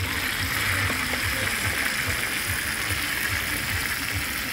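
Steady hiss of beef and vegetables sizzling on a hot round iron pan over coals, with a low, irregular rumble underneath.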